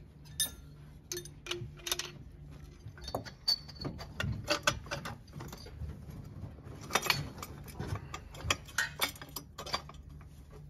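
Irregular metal clicks, clinks and knocks as aftermarket exhaust header pipes are handled and offered up to a Harley-Davidson engine, over a steady low hum.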